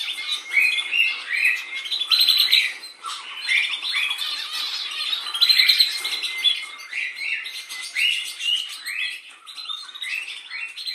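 Birds singing and chirping in a busy dawn chorus: many short, high calls and trills overlapping without a break.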